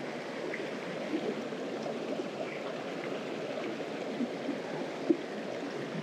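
Mountain stream flowing: a steady rush of water with small gurgles, and one brief sharp click about five seconds in.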